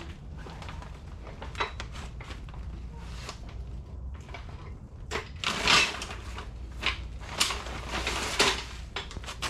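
Clicks, knocks and short clattering noises of hand work at a mower's rear wheel, with a louder rough burst about halfway through and two more sharp knocks near the end.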